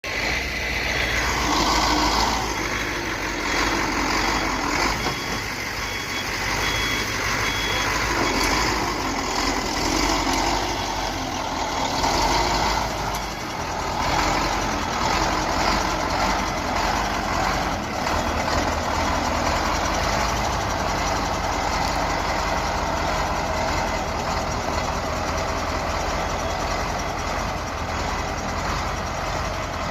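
KAMAZ diesel truck engine working hard through deep mud, its revs rising and falling, with a reversing beeper sounding repeatedly through roughly the first half.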